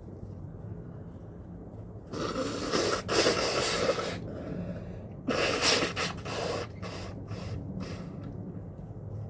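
A person with a cold breathing in sharply and sneezing twice, each sneeze a loud noisy burst, followed by a few short sniffs.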